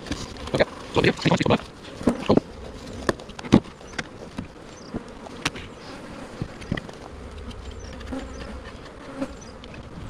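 Honeybees buzzing around an open hive, with a run of sharp knocks and bumps, thickest in the first few seconds, as the hive parts are put back in place and the hive is closed up.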